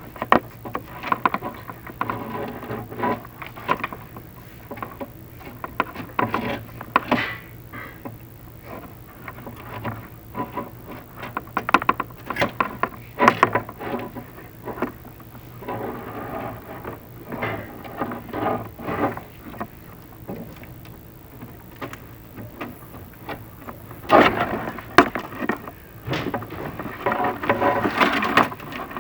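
Chimney inspection camera and its cable scraping and rubbing against the masonry inside the flue and smoke chamber, in irregular bursts over a steady low hum.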